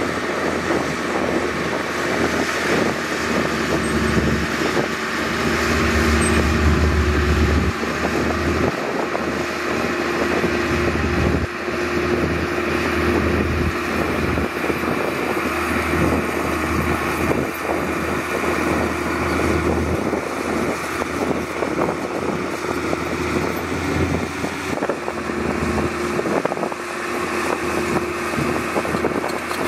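A vehicle running steadily, with a constant rushing noise and a low, even hum throughout.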